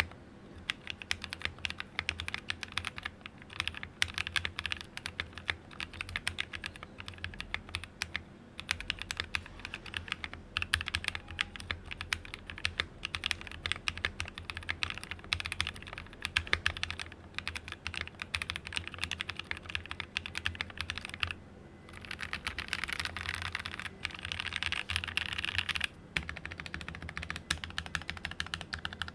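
Fast continuous typing on a mechanical keyboard with lubed NovelKey Cream linear switches on a plateless 60% hotswap board in an acrylic case. The keys bottom out loudly as each stem's long pole hits the bottom housing. The typing stops briefly a few times, once about two thirds of the way through.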